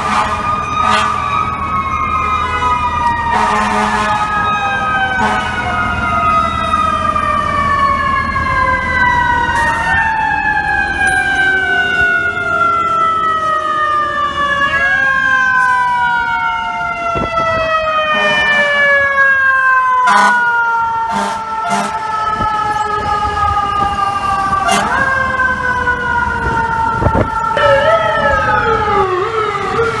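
FDNY fire truck siren, a mechanical Q-type, sounding as the truck passes. Its pitch winds down slowly over several seconds, then is spun quickly back up, again and again. Near the end the pattern changes to quicker up-and-down sweeps.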